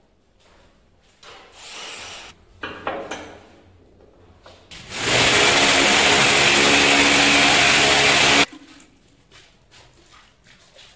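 Electric angle grinder running steadily for about three and a half seconds, a loud whine with a hiss, starting about five seconds in and cutting off abruptly. Before it, faint scraping and knocking of stone work.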